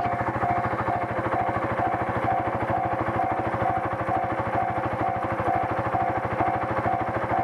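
Level-crossing warning bell ringing steadily, about two strokes a second, over the even idle of a Suzuki ST250's single-cylinder engine.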